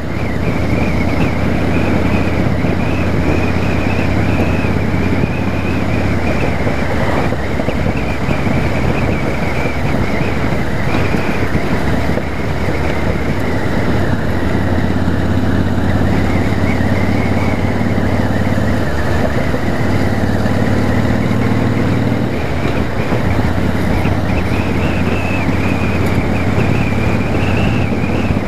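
Motorcycle engine running under way, heard from the rider's own bike over steady wind rush on the microphone. The engine note shifts briefly about two-thirds of the way through, as if easing off and picking up again.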